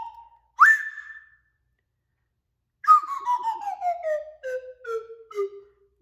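Metal slide whistle: a quick swoop up, held for under a second, then after a short pause a slow downward slide in small wavering steps lasting about three seconds.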